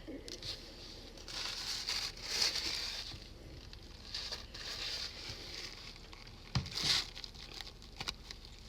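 Paper crinkling and rustling close to the microphone, in a few short spells, the last sharper one near the end.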